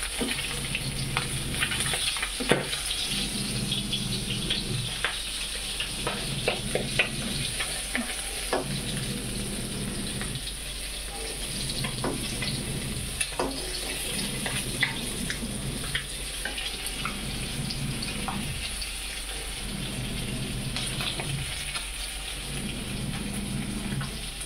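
Fish pieces shallow-frying in hot oil in a kadhai, a steady sizzle. A flat metal spatula scrapes and clicks against the pan now and then, with several sharp clicks.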